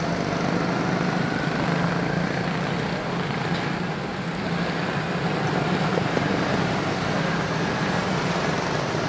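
A pack of Honda-powered quarter midget race cars lapping a small oval, their small single-cylinder four-stroke engines droning steadily together.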